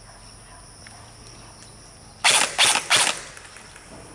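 An airsoft gun firing three short bursts in quick succession, a little over two seconds in, each lasting about a fifth of a second.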